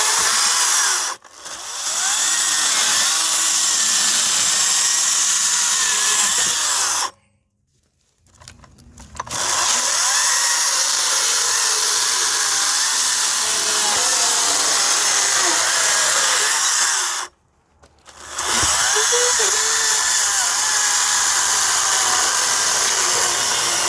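Greenworks 60-volt battery-powered electric chainsaw running under load cutting firewood, its pitch dipping and rising as it works. It stops for a moment about a second in, falls silent for about two seconds around a third of the way through, and stops briefly again later, each time as the trigger is let go, restarting at once.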